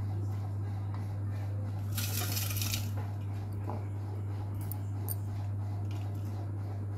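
A coconut laddu is set on a stainless-steel plate and the plate is handled, giving a brief metallic clatter about two seconds in and a couple of light clicks near five seconds, over a steady low hum.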